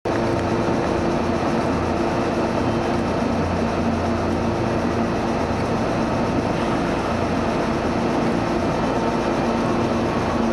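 Meitetsu 3500 series electric train standing at the platform, its onboard equipment giving a steady hum with several held low tones. Near the end the train begins to pull away.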